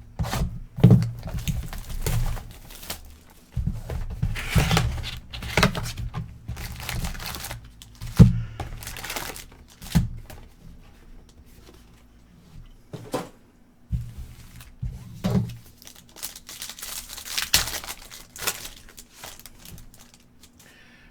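The second sealed box of trading cards and its packs being opened by hand: plastic wrapping tearing and crinkling in irregular bursts, mixed with sharp knocks and taps of cardboard and cards being handled.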